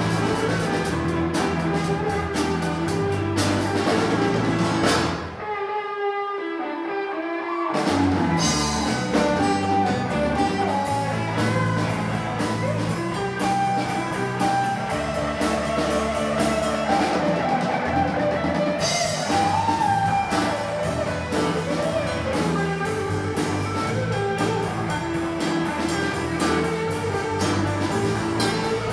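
Live rock band playing an instrumental passage on electric guitar, bass and drum kit. About five seconds in, the drums and low end drop out for a couple of seconds, leaving the guitar alone, then the full band comes back in.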